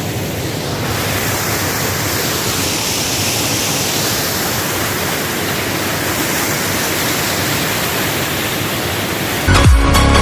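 Waterfall fed by water let out through dam gates, rushing steadily. Loud electronic dance music cuts in suddenly near the end.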